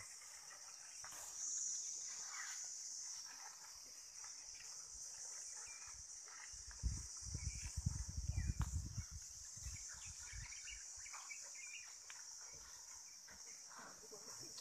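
Steady, high-pitched chorus of insects, with faint scattered bird chirps. About seven seconds in comes a burst of low rumbling noise lasting a couple of seconds, the loudest thing heard.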